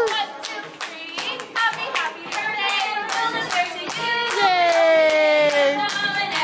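Singing over a steady beat of hand claps, with a long held note about two-thirds of the way through.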